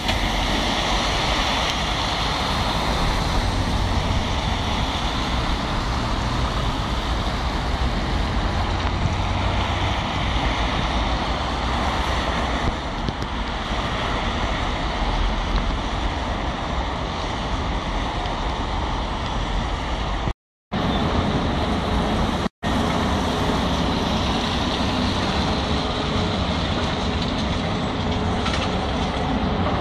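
Steady road traffic noise of cars and a lorry passing at a roundabout. The sound cuts out completely twice for a moment about two-thirds of the way through.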